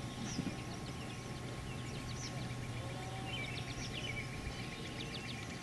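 Small birds chirping and twittering, with a quick run of short notes partway through, over a steady low hum.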